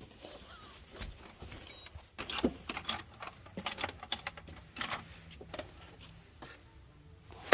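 Irregular light clicks and clinks of small hard objects being handled, with the sharpest ones a little after two seconds in and again around five seconds in.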